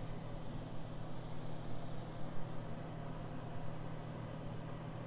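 Apple hand pies deep-frying in hot oil in a cast-iron skillet: steady sizzling and bubbling over a constant low hum.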